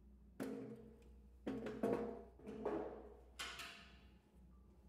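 Hollow knocks and clunks of Q.SAVE G3 battery modules' housings being set down and seated onto the mounting base and onto each other, about five knocks, each ringing briefly.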